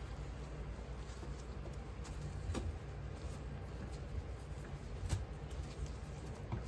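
Petrobond casting sand being worked into a flask by hand: faint scratching and pattering with two light knocks, over a steady low hum.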